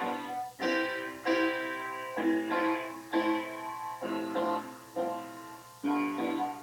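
Piano chords played one after another, about ten in all, each struck and left to fade before the next.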